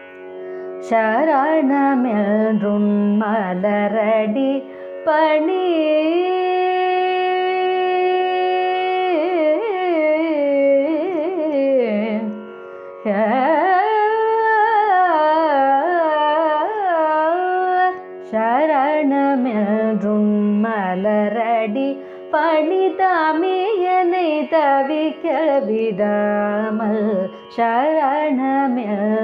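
A woman singing a Carnatic kriti in raga Sivaranjani, her line sliding and ornamented between notes, with one long held note early on, over a steady drone. She pauses briefly for breath between phrases.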